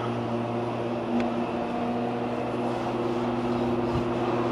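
A steady low mechanical drone, like an engine or machine running, growing slightly louder near the end, with a couple of faint clicks.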